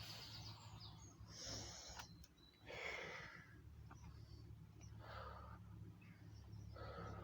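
A man breathing hard between burpees, with five heavy breaths spaced roughly one and a half to two seconds apart. Under them runs a faint, steady low hum.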